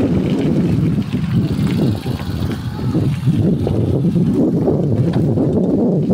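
Wind buffeting the microphone while riding, a loud uneven rumble with the passing road and vehicle noise underneath.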